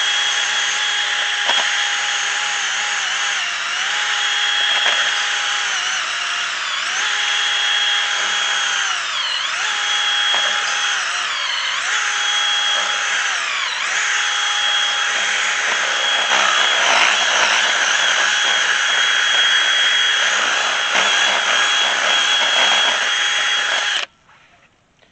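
DeWalt cordless drill with a half-inch paddle bit boring into a wooden fence post: a steady motor whine whose pitch sags briefly several times as the bit bites. It cuts off abruptly near the end.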